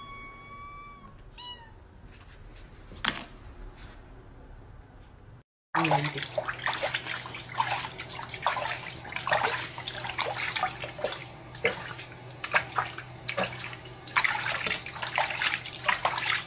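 A kitten mewing: one long, high mew at the start with a couple of short ones after it. Then, after a break, water splashing and sloshing in a basin as a wet cat is washed by hand, with a low steady hum underneath.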